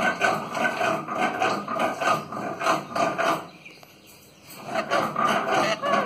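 Indian ringneck parrot making scratchy, rasping sounds at close range, in two stretches with a short pause about three and a half seconds in.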